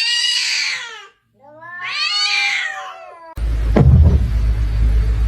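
A cat giving two long, drawn-out meows, each sliding down in pitch at the end. About three seconds in, the sound cuts to a steady low hum with a thump.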